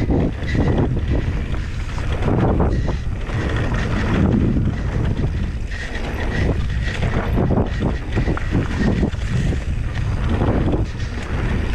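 Wind buffeting the microphone over the noise of a Canyon Spectral 29 mountain bike riding a dirt trail: knobby tyres rolling, with the bike rattling and knocking over bumps.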